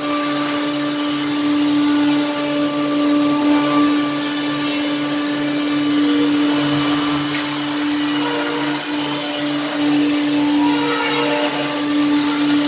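Woodworking saw machine running steadily while cutting wood: a strong, even motor hum over a wide whirring noise, with a regular low pulsing underneath.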